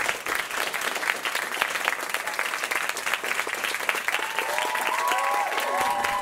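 Small theatre audience applauding at a curtain call: dense, fast, steady clapping. Several high, wavering tones join the clapping about four seconds in.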